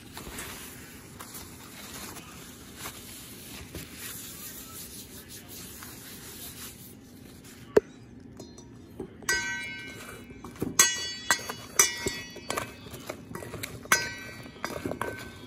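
Halved Brussels sprouts being tossed with a spoon in a stainless steel mixing bowl. For the first several seconds there is a soft rustling scrape. Then comes a sharp knock, and after a second or so a quick run of clinks as the spoon strikes the bowl, which rings after each hit.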